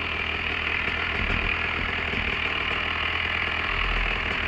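Paratrike engine idling steadily before the takeoff run.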